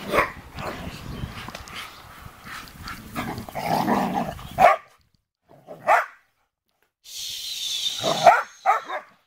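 Rustling noise for the first half, then dogs barking: one short bark about six seconds in and three quick barks and yips near the end.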